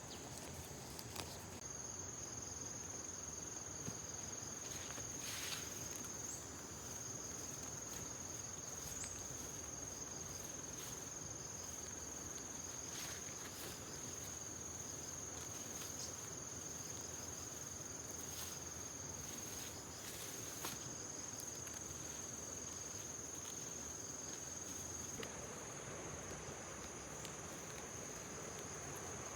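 Insects trilling in one steady high-pitched note, with a few scattered light clicks.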